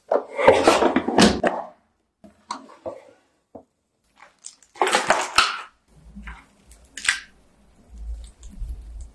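Food and aluminium foil being handled: two loud bursts of crinkling and rustling, one just after the start and one about five seconds in, with scattered soft clicks between them.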